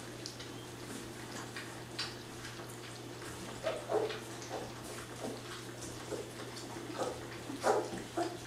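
Three-week-old Labrador retriever puppies lapping and slurping gruel from shallow pans: irregular wet smacks and clicks, a few louder ones about four seconds in and near the end.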